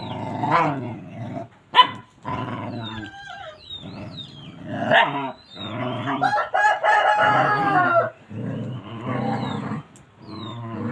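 A dog howling and whining in a string of wavering, drawn-out calls, the longest lasting about two seconds.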